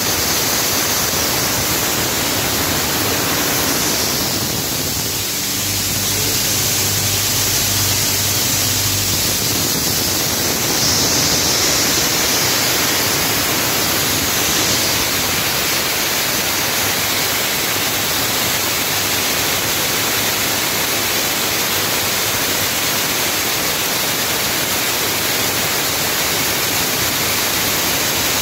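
Belt-driven groundnut (peanut) processing machine running: a loud, steady rushing noise from its electric motor, V-belts and the nuts passing through, with a faint low hum for a few seconds.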